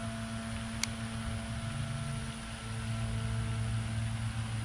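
A steady low electrical hum over a faint hiss, with one sharp click about a second in.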